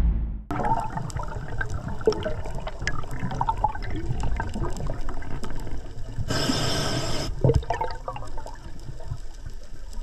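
Underwater sound of a scuba diver breathing through a regulator: low bubbling and gurgling with scattered clicks, and a hiss of about a second some six seconds in.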